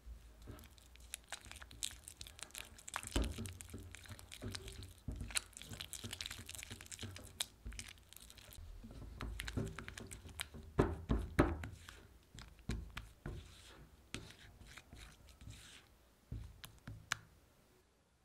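Spatula stirring and scraping soft creamed butter and beaten egg around a mixing bowl: irregular wet scrapes and light knocks against the bowl, busiest in the middle and thinning toward the end.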